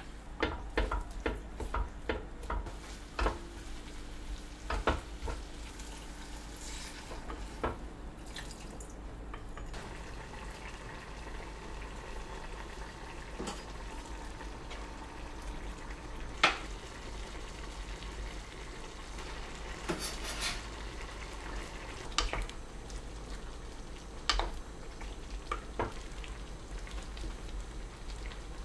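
Food sizzling in a hot black earthenware pot as seasoned diced ingredients are scraped in from a glass bowl with a spoon, with a quick run of clinks in the first few seconds. Later, tofu cubes drop into the simmering doenjang stew, with scattered clicks over the steady sizzle.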